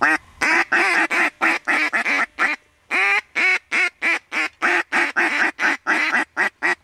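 Mallard duck call blown by a hunter: two long runs of loud, rapid hen-mallard quacks, about three to four a second, with a brief pause about two and a half seconds in, calling to ducks working the decoys.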